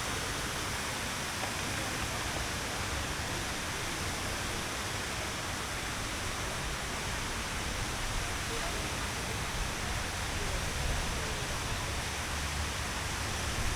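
Steady rushing noise of falling water.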